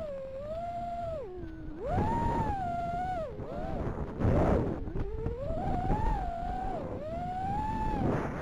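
Brushless motors and propellers of an iFlight XL5 FPV quadcopter whining, the pitch rising and falling smoothly as the throttle changes, with louder rushes of noise about two and four and a half seconds in.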